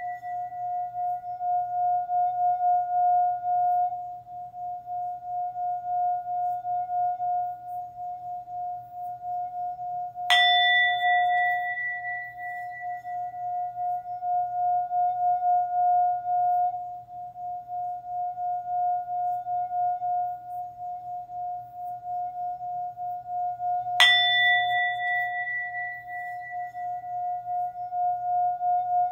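A singing bowl's sustained tone, wavering in a steady pulse of a few beats a second. The bowl is struck twice, about 10 seconds in and again near 24 seconds, each strike adding a brighter ring that fades over a few seconds.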